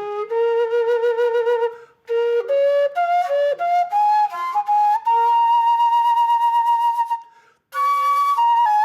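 Music: a solo flute-like wind instrument playing a slow melody that steps upward to a long high held note, with two short pauses.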